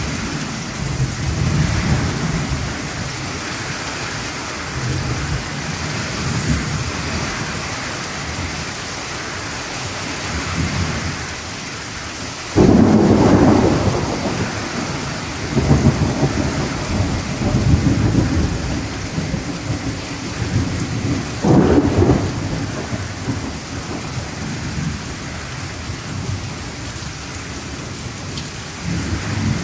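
Thunderstorm: heavy rain falling steadily on the trees while thunder rumbles low throughout. A sudden loud thunderclap comes about twelve seconds in, followed by several seconds of rumbling, and a second loud clap comes a little past twenty seconds.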